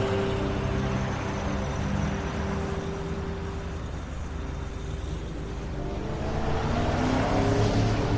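Diesel bus engine running at a stop under street traffic noise, growing louder near the end.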